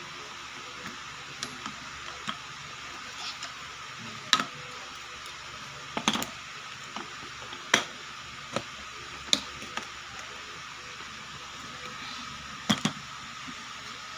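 Plastic toy pieces of a Play-Doh playset being handled and fitted together: scattered sharp clicks and knocks, several seconds apart, over a steady faint hiss.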